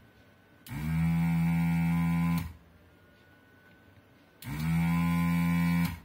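Pro'sKit SS-331H desoldering gun's built-in vacuum pump switched on twice, each time rising in pitch as it spins up and then holding a steady hum for about a second and a half before cutting off.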